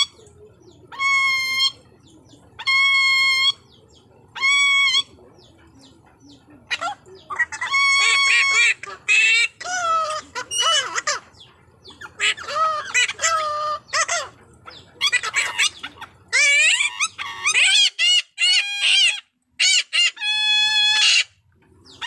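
Blue-naped parrot and racket-tailed parrot calling together. It opens with four short, even squawks about two seconds apart. From about seven seconds in comes a busier run of overlapping calls that slide up and down in pitch.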